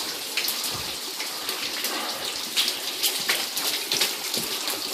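Water running and splashing in a basement flooded about two inches deep, a steady rush with irregular splashes and drips.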